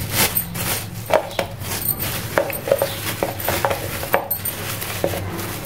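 Thin plastic carry bag rustling and crinkling, with light clicks and taps of plastic takeaway containers as they are bagged.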